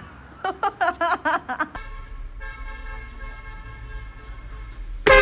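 Car horn held in one steady blast for about three seconds, starting about two seconds in, heard from inside the car. It ends with a loud sharp click, the loudest sound here.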